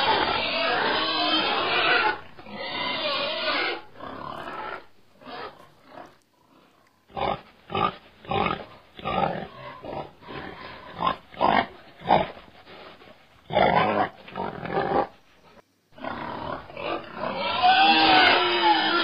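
Pig-like squealing and grunting: dense squeals at the start, then a run of short separate grunts, a couple a second, then squealing again near the end.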